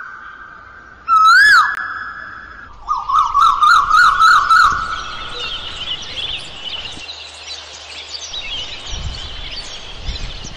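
Two loud swooping whistles, each rising and then falling, followed by a quick warbling trill and then many small birds chirping.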